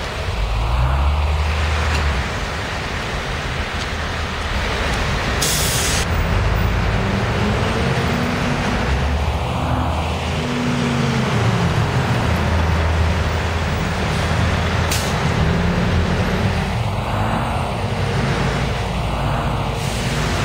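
New York City buses and street traffic passing. Bus engines run with their pitch rising and falling as they move off, and a short hiss of air brakes comes about five and a half seconds in.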